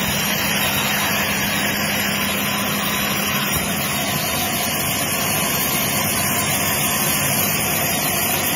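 Band sawmill running steadily, its blade cutting lengthwise through a log as the carriage feeds it past. The machine noise is continuous and even throughout.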